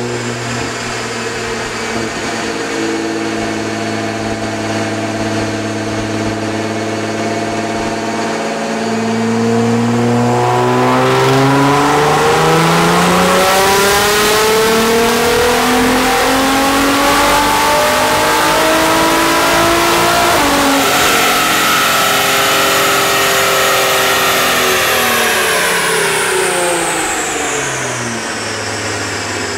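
Nissan GT-R R35's twin-turbo 3.8-litre V6 on an all-wheel-drive chassis dyno. It runs steadily at low revs, then makes a full pull with the engine note climbing for about ten seconds and getting louder, and it winds back down near the end.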